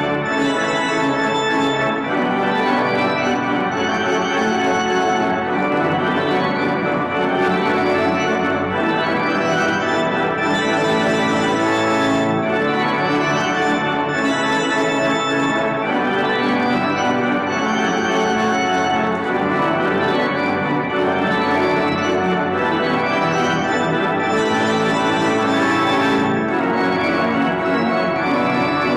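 Church pipe organ playing the postlude: loud, full sustained chords that change every second or so.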